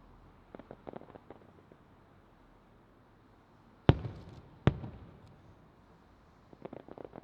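Aerial fireworks shells bursting: two loud bangs less than a second apart midway, each trailing off in a short rolling echo, with clusters of smaller, quicker pops about half a second in and again near the end.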